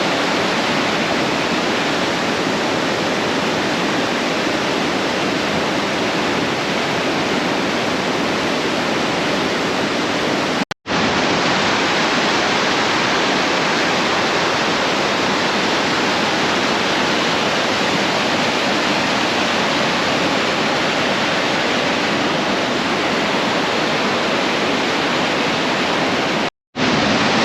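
A three-tiered waterfall with a steady, loud rush of falling water. It cuts to silence for a split second twice, about 11 s in and near the end.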